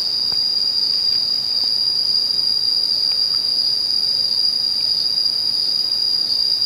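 Insects droning in one steady, high-pitched chorus without a break.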